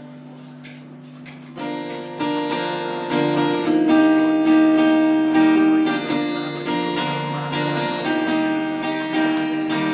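Acoustic guitar playing the opening chords of a song's introduction, starting quietly and growing fuller and louder from about a second and a half in.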